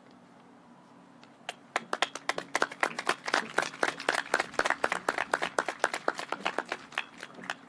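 A small group of people clapping by hand, a few separate claps rather than a crowd's roar. The clapping starts about a second and a half in and thins out near the end.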